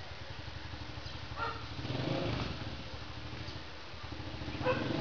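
A dog barking, once about a second and a half in and again near the end, over a low engine rumble that swells about two seconds in.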